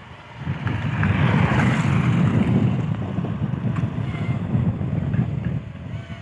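Wind buffeting the microphone: a loud, gusty low rumble that rises about half a second in and eases off near the end.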